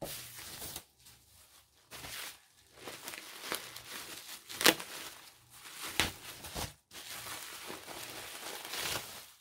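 Parcel wrapping crinkling and tearing as it is opened by hand, in irregular bursts, with a sharp snap about halfway through.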